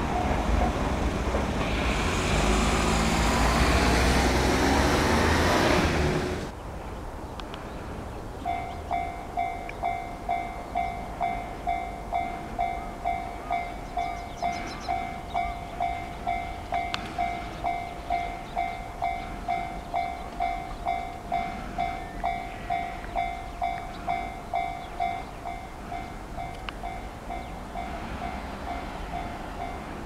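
A JR Ryomo Line electric train passing over a level crossing, loud for the first six seconds until it cuts off abruptly. About eight seconds in, a Japanese level-crossing warning bell starts ringing steadily at about two strikes a second, warning of an approaching train as the barriers lower.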